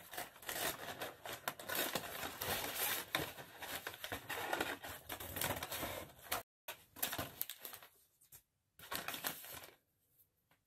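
Scissors cutting through a brown paper lunch bag: quick irregular snips with the paper crinkling and rustling. The cutting stops about six seconds in, leaving only a few faint paper rustles.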